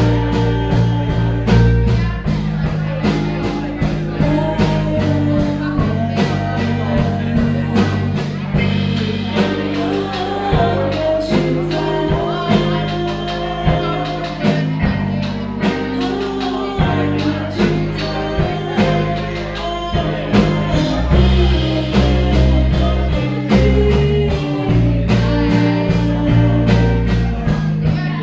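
Live rock band playing: two electric guitars, bass guitar and drum kit over a steady drum beat, with a woman singing lead.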